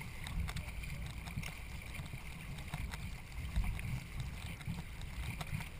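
Racing canoe moving through water, with a steady rumble of wind on the microphone and a few faint, irregular light knocks.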